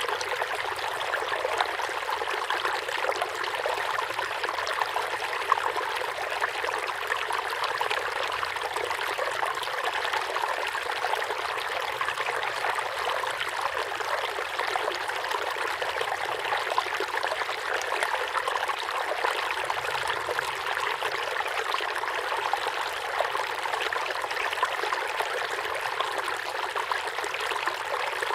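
Forest river flowing steadily over rocks, a continuous babble of splashing and trickling water.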